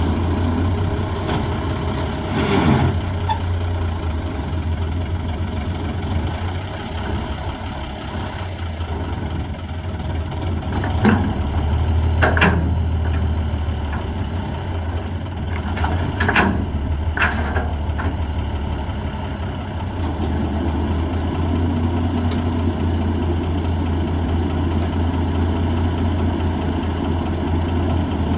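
M816 wrecker's heavy six-cylinder diesel running steadily at a low, even speed, with several brief sharp noises from the recovery work scattered over it.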